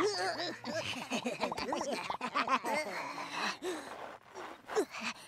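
Cartoon characters' wordless vocalizations: a busy stream of short gasps, grunts and babbling, sometimes overlapping, with a few clicks, stopping just before the end.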